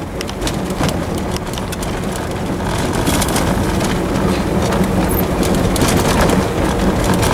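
Inside a Lada car driving over a rutted dirt road: the engine runs steadily under loud road noise, with frequent knocks and rattles from the body as it goes over the bumps.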